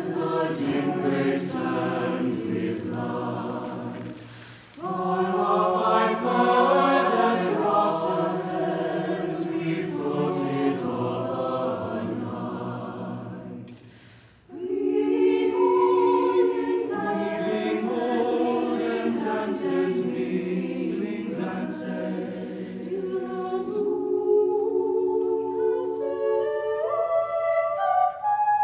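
Chamber choir singing sustained chords in long phrases, with two short breaks between phrases. Near the end the harmony thins out and climbs upward step by step.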